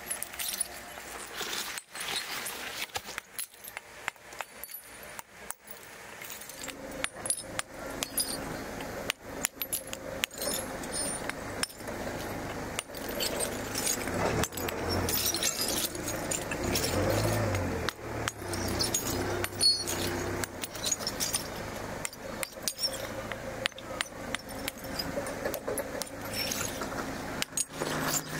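Steel parts clinking and clattering against each other in metalworking, with many sharp metallic ticks. A low machine hum comes in about six seconds in and grows louder in the middle.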